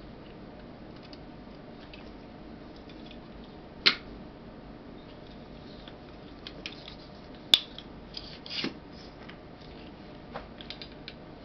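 Handling sounds from a small aluminium tabletop tripod as its folded legs and telescopic column are worked: scattered clicks and short scrapes, with the sharpest click a little past halfway, over a steady faint hiss.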